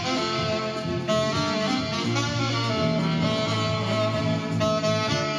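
Saxophone and acoustic guitar playing an instrumental tune together live, the saxophone carrying the melody over the guitar.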